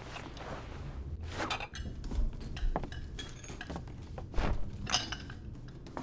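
China teacups, saucers and a teapot clinking and rattling on a carried serving tray: a handful of separate clinks, two of them with a dull knock underneath.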